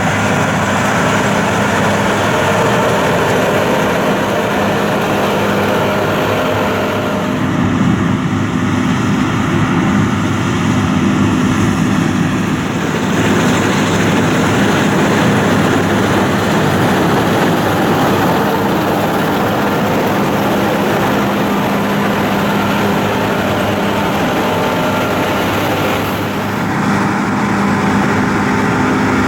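Large diesel harvest machinery running steadily under load, with a steady engine hum; the mix of the sound changes about a quarter of the way in, again about halfway, and near the end.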